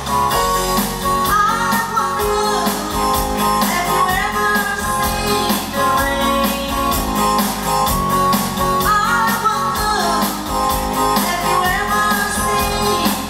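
Rock band playing: strummed guitars over a steady drum beat, with a melody line that bends and slides above them.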